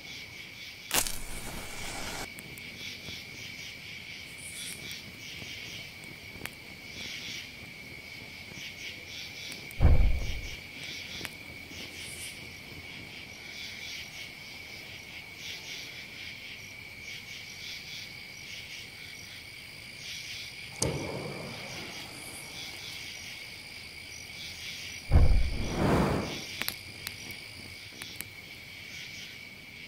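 Insects chirping steadily in a rapid pulsing drone, with a few dull thumps: the loudest about ten seconds in and two more close together near the end.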